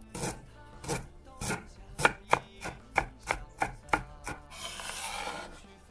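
Kitchen knife chopping scallions and ginger on a cutting board: about a dozen sharp chops, quickening to roughly three a second in the middle, then a short scrape near the end.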